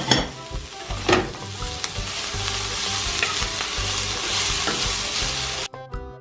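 Beef strips and vegetables sizzling in a nonstick wok while a wooden spatula stirs them. There are a couple of sharper clicks of the spatula against the pan, at the very start and about a second in. The sizzle cuts off suddenly near the end.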